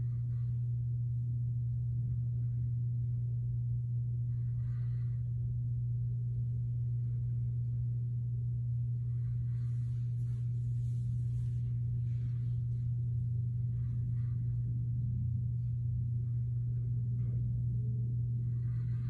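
A steady low hum at an even level throughout, with faint scattered short sounds over it.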